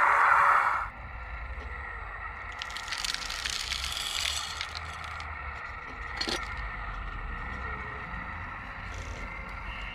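An RC model wheel loader's bucket scrapes through ballast stones until about a second in. About three seconds in, a load of small stones rattles for nearly two seconds as it is tipped into a model hopper wagon, and a single knock follows a little later. A faint steady motor whine runs underneath.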